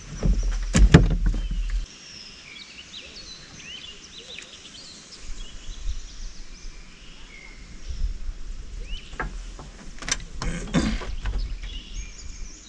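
Songbirds chirping and calling, with a low rumble underneath and a few sharp knocks: loudest in the first two seconds, and the knocks come again about ten seconds in.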